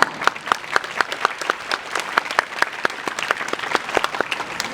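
An audience applauding, with separate hand claps standing out at a few per second.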